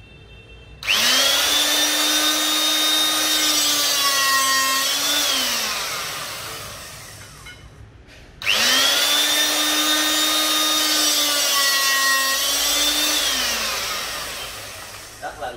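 Seoul Handy 25C electric-hydraulic rebar cutter working two cutting cycles on 20 mm round steel bar. Each time its motor and pump start abruptly with a loud, steady whine, the pitch sags under load near the end, and the sound then falls and winds down as the motor stops.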